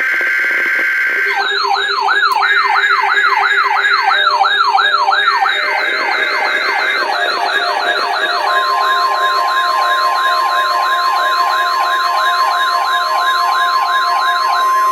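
NOAA Weather Radio alert signalling: three short bursts of warbling two-tone SAME digital header data, with a weather alert radio's siren alarm from about a second and a half in, its pitch sweeping up over and over about three times a second. Just past the middle, the steady 1050 Hz weather radio warning alarm tone starts and holds under the siren, signalling the weekly required test.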